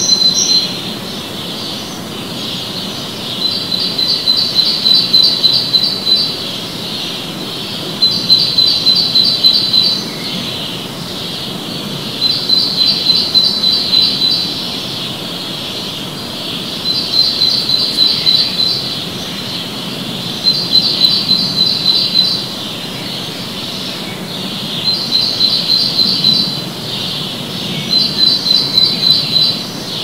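A songbird singing the same short phrase over and over: about two seconds of quick, evenly repeated high notes, then a pause of about two seconds, seven times. The song echoes off the walls of an enclosed back courtyard.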